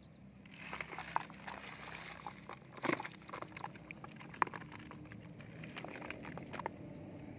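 Rustling and scattered crackling clicks as a net-covered fish trap is gripped, turned and laid over in wet grass, with a few sharper clicks among them.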